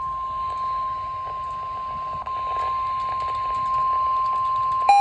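Emergency alert warning tone from a weather-alert radio broadcast: a single steady pitch of about 1050 Hz held without a break, the attention signal that comes before a severe thunderstorm warning is read. Near the end it stops and a quick run of beeps stepping between a few pitches begins.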